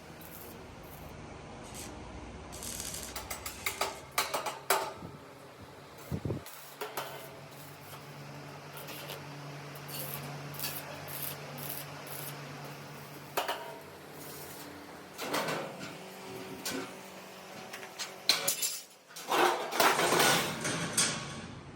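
Metal parts and hand tools clanking and scraping in irregular knocks, busiest near the end, with a steady low machine hum through the middle.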